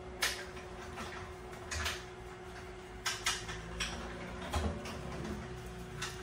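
A fork scraping and clicking against a bowl, half a dozen short strokes spread out as a man eats, over a faint steady hum.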